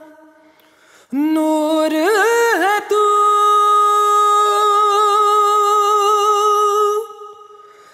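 Song on the soundtrack: a singer's voice, with no clear words, slides up through a few bending notes about a second in, then holds one long steady note for about four seconds before fading near the end.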